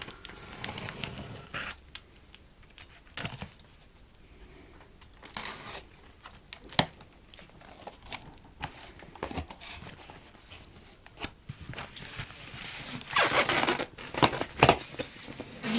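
Shipping packaging being torn open and crinkled by hand: scattered rustles and clicks, with a longer stretch of tearing near the end.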